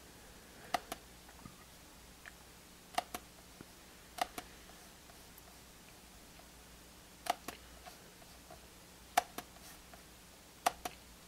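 iBook G3's trackpad button being clicked six times, each click a sharp press and release about a fifth of a second apart, with a second or more between clicks.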